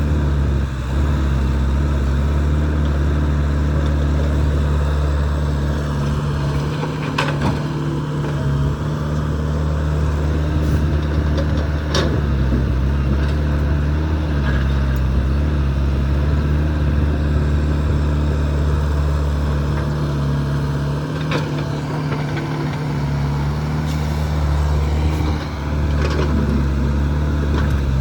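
Excavator's diesel engine running steadily under load, with a few sharp clanks scattered through.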